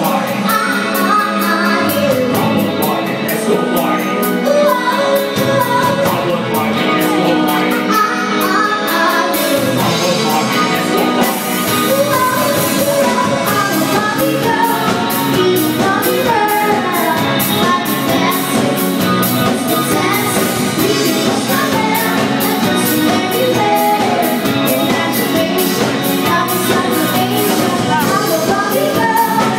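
Live band with a drum kit playing amplified pop-rock, a woman singing lead into a microphone over a steady drum beat.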